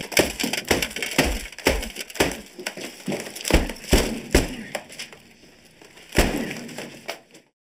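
Things on an office desk being smashed and knocked about: a run of sharp crashes and clatter, about two a second, that eases off after about five seconds, then one more loud crash just after six seconds before the sound cuts off.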